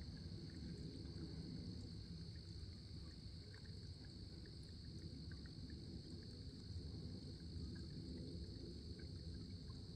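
Faint creekside ambience: a low rumble under a steady high-pitched hum, with a few scattered faint ticks.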